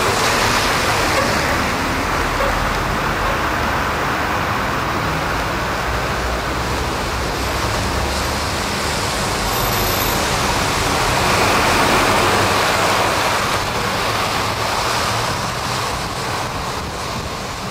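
Heavy diesel lorries passing on a wet street: engines running low and tyres hissing on the wet road. The sound swells as a lorry passes close, about two-thirds of the way in, then fades as it pulls away.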